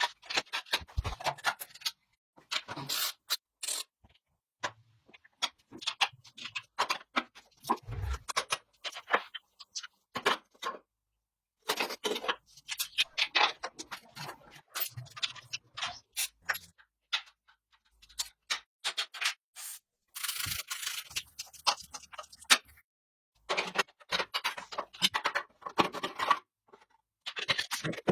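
Workshop hand-work sounds: irregular clicks, taps and scrapes of tools on parts, in bursts of a second or two with abrupt silent gaps between them.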